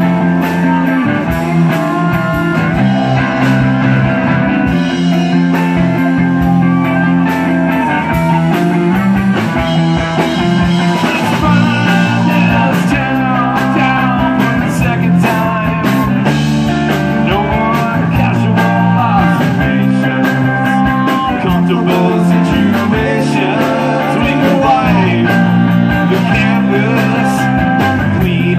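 Live rock band playing, with electric guitar, electric bass and drum kit.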